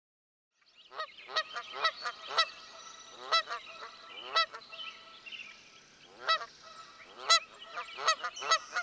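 A flock of geese honking, with many short overlapping calls starting about half a second in and repeating irregularly.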